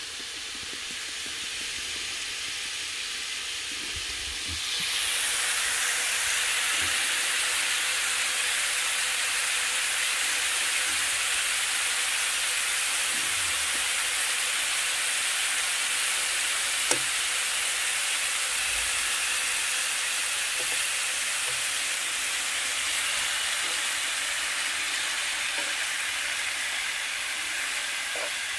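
Thin slices of pork neck frying in oil in a nonstick pan: a steady sizzle that gets louder about four and a half seconds in, with a single short click partway through.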